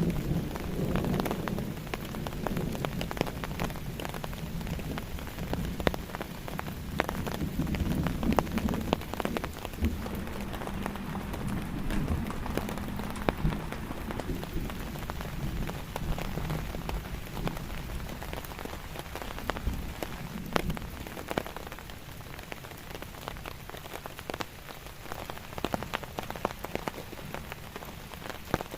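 Steady rain falling on a tent, with many single drops ticking sharply on the fabric. A low rumble at the start dies away within the first couple of seconds.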